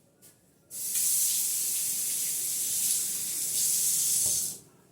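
Kitchen tap running warm water into a cup for about four seconds, a steady rushing hiss that starts just under a second in and cuts off near the end.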